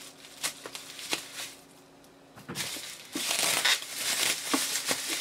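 Plastic bubble wrap crinkling and rustling as it is handled and pulled off a box. A few light clicks in the first second and a half, a short lull, then dense, louder crinkling from about two and a half seconds in.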